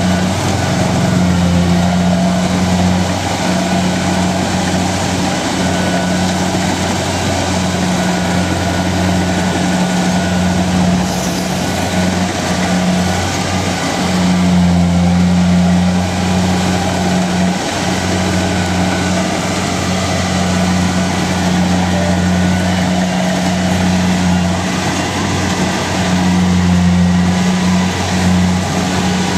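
Kubota DC-70 Plus combine harvester's diesel engine running steadily, a constant low drone with machinery noise above it.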